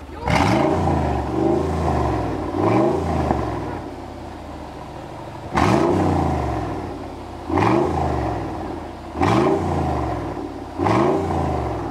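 Straight-piped Mercedes-Benz G500 4x4²'s V8 blipped about seven times. Each rev jumps up sharply and falls back to a low idle between blips.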